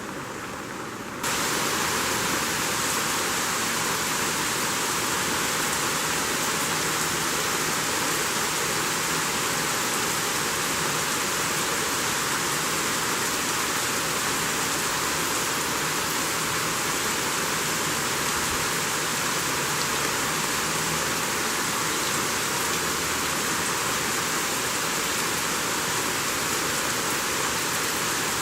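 Steady rain falling, an even, unbroken hiss that jumps suddenly louder about a second in and then holds.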